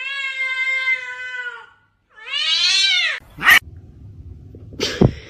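A cat meowing twice in long, drawn-out calls, the first held nearly level and the second rising and then falling. A sharp knock follows, and another near the end.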